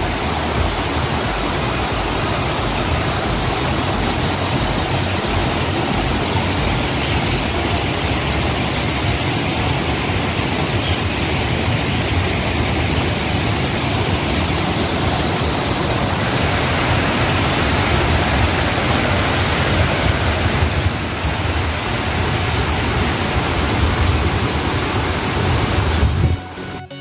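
Steady rushing of flowing water, an even hiss with a low rumble beneath, cutting off abruptly near the end.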